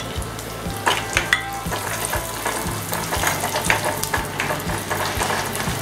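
Cashew nuts, coconut pieces and raisins sizzling in hot ghee in a non-stick pan, stirred with a spatula that scrapes and taps against the pan again and again.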